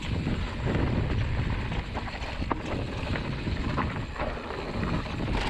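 Mountain bike riding downhill on a rough dirt singletrack: tyres rumbling over dirt, roots and stones, with occasional sharp knocks and rattles from the bike, and wind buffeting the microphone.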